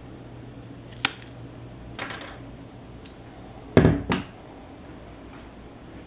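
A hand miter shear snipping through a thin balsa strip with a sharp click about a second in. A short scratchy sound, a faint click, then a louder low knock with a click just after it follow as the tool and pieces are handled.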